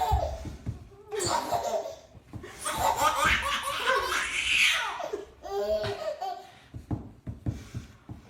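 A baby laughing heartily in several fits, the longest and highest-pitched run about three to five seconds in.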